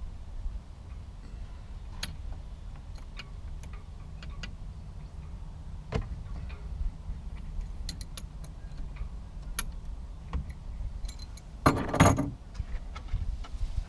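Scattered metallic clicks and clinks of an adjustable wrench working the oil drain bolt on a Tohatsu 6 hp outboard, with a louder clatter of metal tools near the end.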